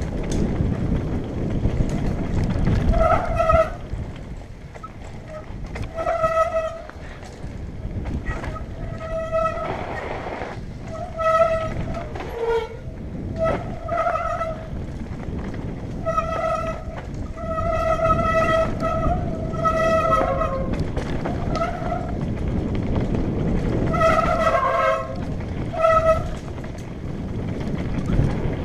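Mountain bike disc brakes squealing in short, repeated bursts at one fixed high pitch as the brakes are dragged on a descent, over the steady rumble of knobby tyres on a dirt trail and wind on the microphone.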